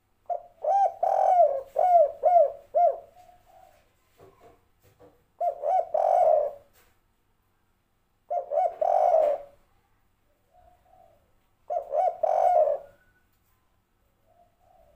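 Spotted dove cooing in four phrases of arched coo notes. The first phrase is the longest, and soft single notes come between the phrases. The bird is what Indonesian keepers call a 'kuk 3' tekukur with an old ('tua') voice.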